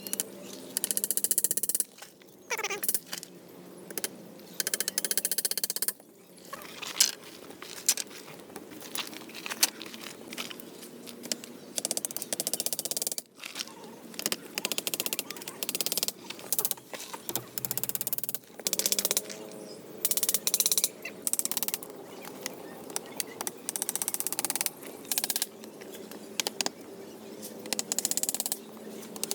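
Hand-tool work noise from shelter building: repeated short noisy strokes, each half a second to a second and a half long, coming irregularly one after another.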